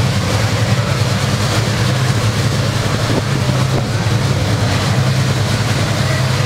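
Supercharged nitromethane drag-racing engine idling loudly and steadily during a pit warm-up, with no revs.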